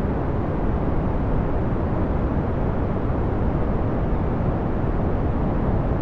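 Steady brown noise: an even, deep rushing hiss, strongest in the low end and fading toward the highs, with no changes or clicks.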